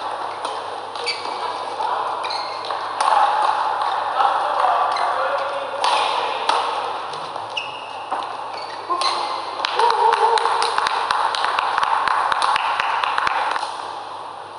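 Badminton doubles rally: court shoes squeaking in short high chirps on the synthetic court mat and rackets striking the shuttlecock, with a quick run of strikes and clicks in the second half. A steady hall murmur and voices run underneath.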